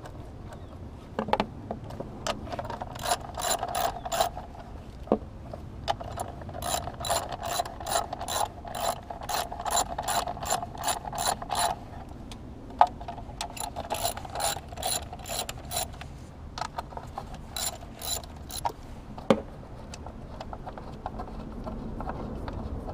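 A 3/8-inch drive ratchet with a 10 mm socket clicking rapidly as it spins out engine cover bolts, in two long runs of clicks with a short break in the middle and a few sharper knocks, then falling quiet near the end.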